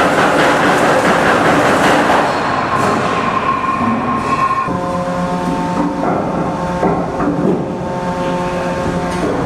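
Aircraft carrier anchor chain running out through the deck chain pipe, its heavy steel links clattering rapidly over the steel. The clatter fades after two or three seconds and gives way to a steady hum of several tones, with a few knocks.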